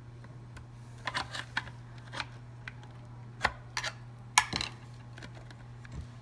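Hard plastic hoverboard shell clicking and knocking against its frame as it is worked into place, in a few irregular clusters with the sharpest knock a little after the middle, over a steady low hum.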